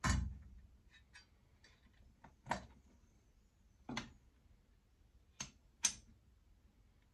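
Sharp plastic-and-metal clicks and knocks from a VW T3's round headlamp unit being handled and its H4 bulb plug worked loose: a loud one at the start, then several more spread out, two close together near the end, with fainter ticks between.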